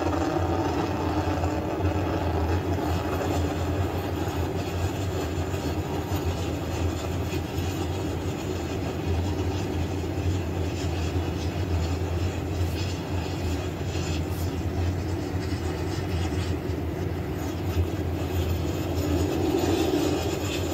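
Falcon 9 first stage with its nine Merlin 1D engines, a steady rocket rumble during ascent.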